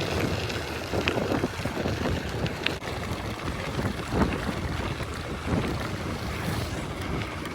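Wind buffeting the microphone of a camera on a moving bicycle: a steady rush of wind noise, heaviest in the low end.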